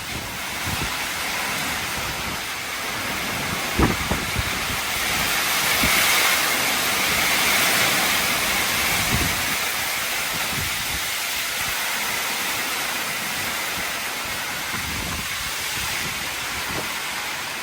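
Heavy thunderstorm rain and wind, a steady hiss that swells about six seconds in, with a few low thumps, the sharpest about four seconds in.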